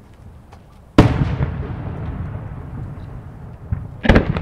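No. 5 (about 15 cm) aerial firework shell bursting with a sudden loud boom about a second in, its rumbling echo dying away over the next two seconds. Another shell bursts with a quick double crack near the end.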